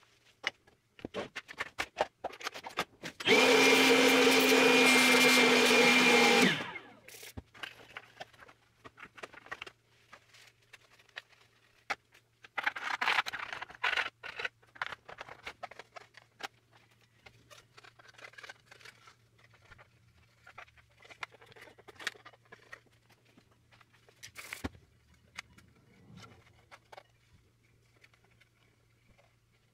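A small electric motor runs at a steady speed for about three seconds with an even whine, then cuts out and spins down. Scattered clicks from handling small parts run through the rest, with a brief hiss about 13 seconds in.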